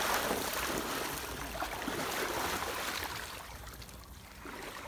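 Water sloshing and splashing in a shallow inflatable pool as two people wade and grapple in it, dying down about three and a half seconds in.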